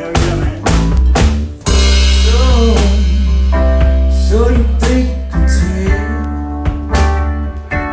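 Live music: a hollow-body electric guitar played with a man singing, over kick drum and snare hits.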